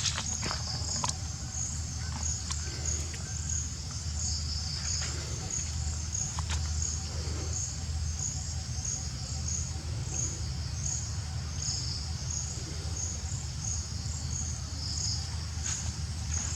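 Insects chirping: a high pulsing trill repeating evenly about two to three times a second. It sits over a steady low rumble, with a few faint clicks.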